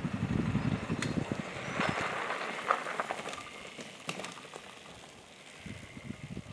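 Adventure motorcycle running on the road, a low rumble with light crackling that fades away over the seconds.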